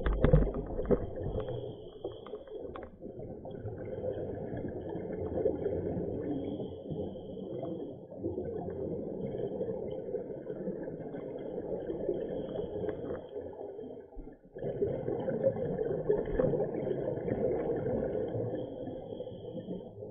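A scuba diver's regulator breathing heard underwater: a continuous gurgle of exhaled bubbles and breath through the regulator, briefly dropping away about fourteen seconds in before the next breath. A few sharp clicks and knocks come in the first three seconds.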